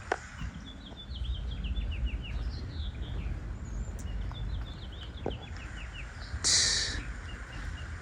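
A songbird singing repeated phrases of quick descending chirps over a low wind rumble. A short burst of hiss, the loudest sound, comes about six and a half seconds in.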